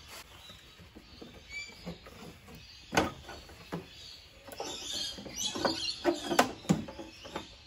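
Hard plastic air intake ducting being pulled off the airbox by hand: a sharp click about three seconds in as it comes free, then a run of knocks, creaks and scraping of plastic parts being worked loose.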